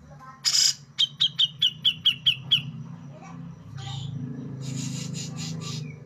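Caged grey-cheeked bulbul (cucak jenggot) singing. It gives a harsh burst, then a quick run of about eight sharp, high, down-slurred notes, about five a second. Later comes a short series of harsh, chattering notes.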